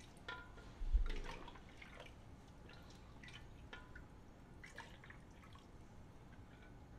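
Chicken stock going into a pan of toasted rice, with scattered drips and small liquid clicks. A dull thump about a second in.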